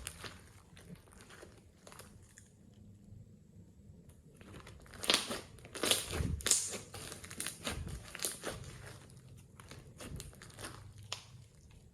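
Slime being squeezed and kneaded by hand, giving off irregular crackling, crunching clicks, with a run of louder crunches about halfway through.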